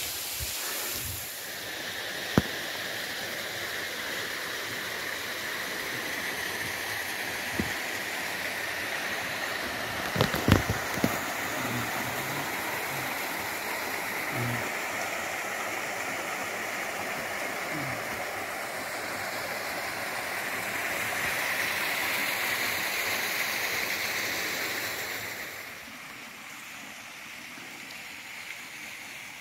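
Steady rushing of a stream's running water, growing louder about twenty seconds in and then dropping away sharply near the end. A few sharp clicks come through about two seconds in and around ten seconds in.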